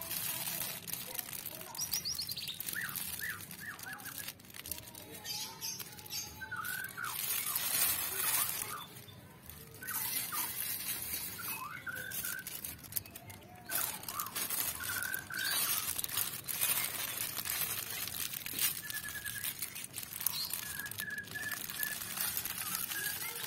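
Small birds chirping in short calls now and then, over stretches of a rushing hiss.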